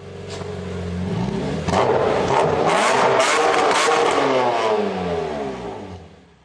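A car engine revving, its pitch falling away in the second half, with several sharp cracks along the way; it fades in at the start and fades out near the end.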